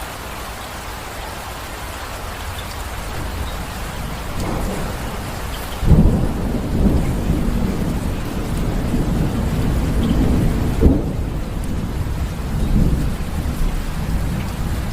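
Steady rain falling, with thunder breaking in suddenly about six seconds in and rumbling on, and a sharper clap near the eleven-second mark.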